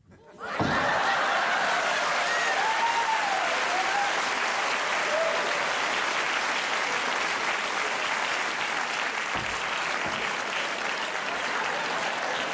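A thud of an actor falling onto a stage floor about half a second in, then a theatre audience applauding loudly and steadily, with a voice calling out over the clapping about two seconds in.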